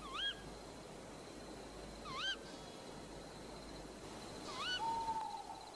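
Night-forest ambience: three short warbling calls about two seconds apart, then a longer whistle that slides slightly downward, over a steady low hiss.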